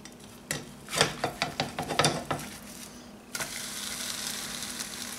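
A spatula scrapes and knocks around the edge of a frying pan in a quick run of strokes, loosening a crepe. About three seconds in the crepe is flipped and steady sizzling starts as the uncooked side hits the buttered pan.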